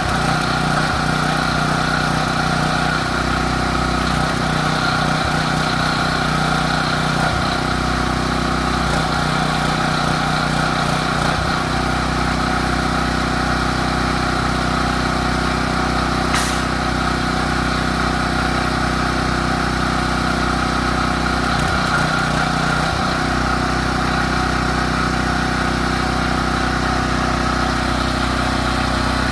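A machine running steadily with an unchanging hum, with one sharp click about halfway through.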